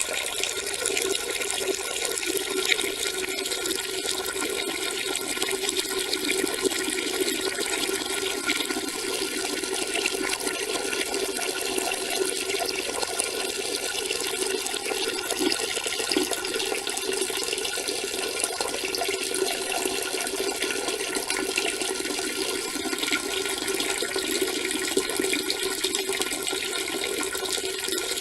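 A steady stream of urine splashing into the water of a toilet bowl, running without a break.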